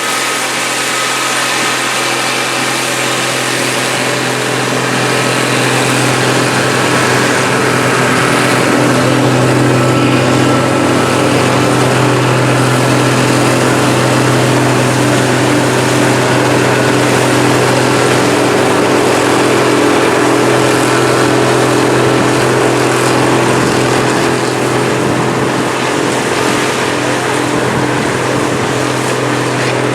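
Harvest machinery engine running steadily at constant speed, a low hum with a thin high whine over it.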